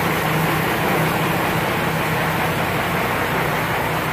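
Slipway winch running steadily under load: a Fuso six-cylinder diesel engine driving the steel-wire-rope drum through a reduction gearbox, with a constant low hum under the machinery noise, as the drum winds in cable to haul a boat up the dock.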